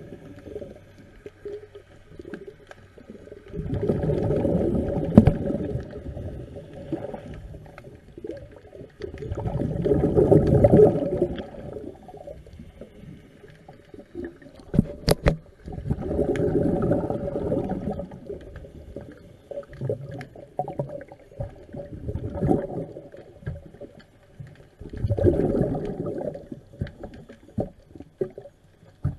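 A scuba diver's regulator breathing underwater: bursts of exhaled bubbles rumbling for about two seconds, four times, with quieter scratching clicks and one sharp tap about halfway between them.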